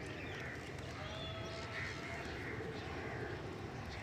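Several birds calling: short repeated calls and a few brief whistles over a steady low background rumble.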